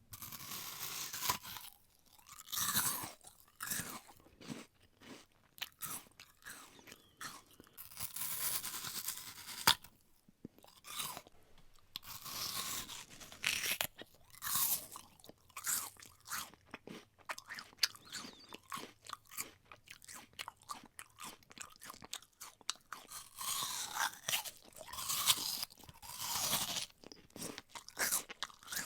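A person biting into and chewing a crisp raw apple close up: loud crunching bites followed by wet chewing and smacking, in irregular bursts with short pauses between.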